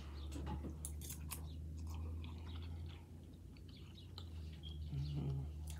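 A person chewing a mouthful of instant noodles, with scattered short wet mouth clicks, over a steady low hum.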